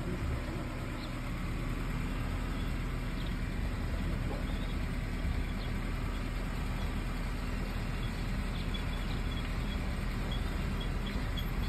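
Car engine running steadily at low speed, a low even hum. Faint high chirps come in over it near the end.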